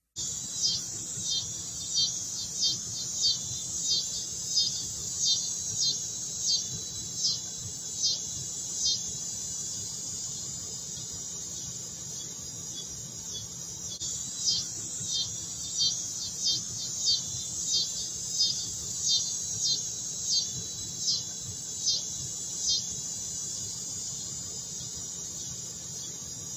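Insect screeching: a continuous high-pitched buzz with louder pulses repeating about one and a half times a second, which stop for a few seconds midway and then resume. The person recording suspects a cicada but is not sure.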